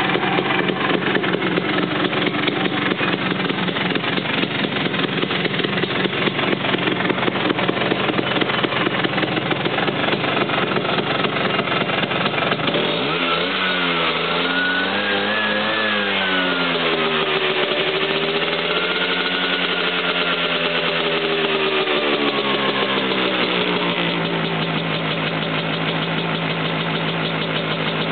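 Vespa P200 scooter's single-cylinder two-stroke engine, bored out with a Pinasco 225 cylinder kit, idling roughly. About halfway through the throttle is opened twice, the engine note rising and falling slowly each time, and it then settles back to a steady idle.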